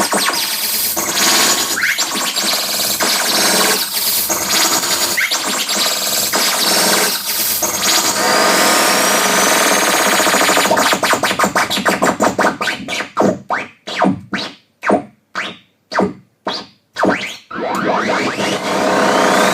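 Live electroacoustic improvisation on a Revox A77 reel-to-reel tape recorder: dense noisy textures with thin whistling tones gliding across them. About two-thirds through it breaks into a fast stutter of chopped bursts with sudden silences between them, then picks up again with a rising whistle glide near the end.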